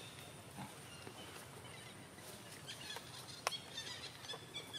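Faint outdoor ambience with scattered short, high chirps from small animals and a few light ticks. A single sharp click stands out about three and a half seconds in.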